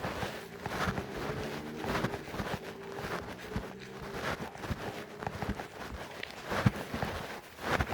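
Footsteps walking along a trail, a knock every half second or so. A steady low hum with several even tones runs underneath for the first few seconds, then fades.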